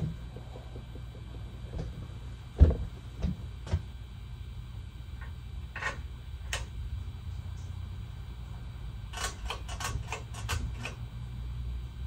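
52-inch Hunter Original ceiling fan with a PSC motor, running in five-blade form with a steady low hum. A sharp knock sounds about two and a half seconds in, followed by two lighter ones, and a quick run of about eight clicks comes near the end.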